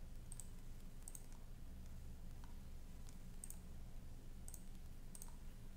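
Several sharp computer mouse clicks, spaced irregularly, over a low steady electrical hum.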